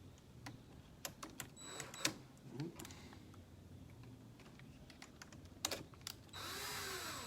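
Small tools and plastic RC parts clicking and tapping as a suspension link is fastened back onto the truck's shock tower mount. Near the end comes about a second of a small electric motor whirring.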